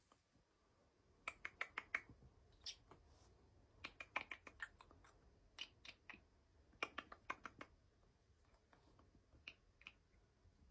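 Runs of sharp mouth or beak clicks, four to six in quick succession, repeated in several groups with pauses between: a man making clicking noises and a cockatoo copying them. A few short, higher chirp-like sounds fall between the runs.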